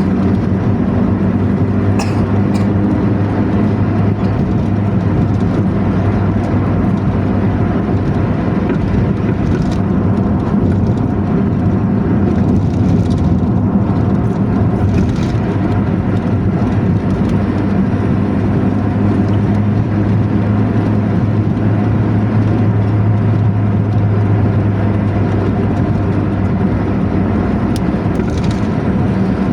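Intercity bus engine running steadily at cruising speed with a deep growling ('ngorok') exhaust drone. Now and then there is a brief sharp knock or rattle.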